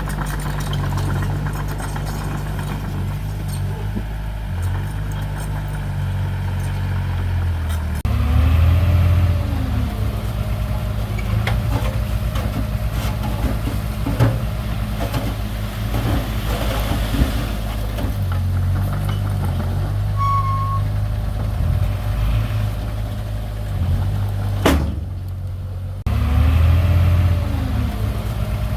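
Engine of heavy earthmoving machinery running steadily, with scattered knocks and clanks. The sound changes abruptly about a third of the way in and again near the end.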